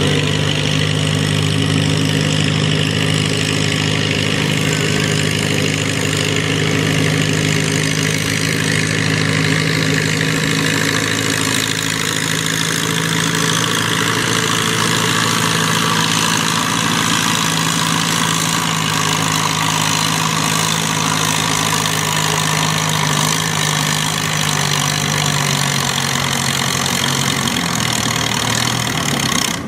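Farm tractor engine running loud and steady at constant revs, its pitch stepping down near the end.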